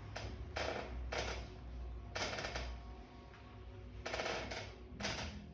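Hands stroking the skin of the neck in a massage: about five short swishing rubs, irregularly spaced.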